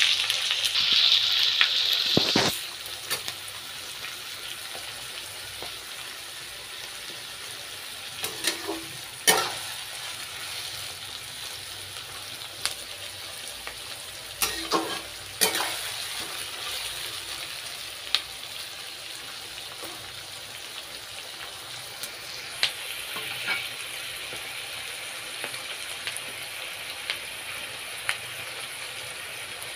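Chopped onions sizzling in hot oil in a karahi, loud for the first couple of seconds and then settling into a steady, quieter sizzle as they fry to soften. Now and then a metal spatula clinks and scrapes against the pan as it stirs.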